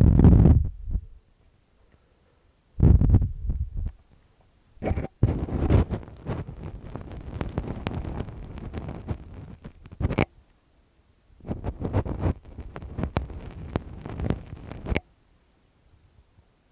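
ASMR ear-cleaning sounds: lace-gloved fingers rubbing and scratching right on the microphone. They come in several muffled, rustling bursts with short pauses between them, and there is a sharp click about ten seconds in.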